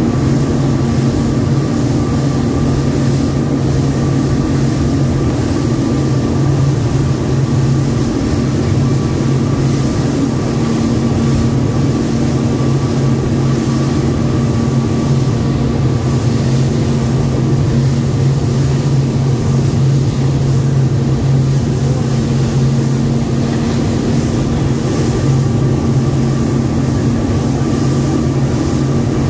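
Speedboat engine running steadily under way, a constant low drone with a steady rushing noise over it.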